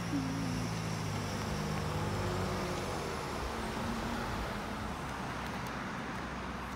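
Road traffic: cars driving past on the street, with engine hum and tyre noise. The engine hum fades out about halfway through, leaving a softer steady traffic noise.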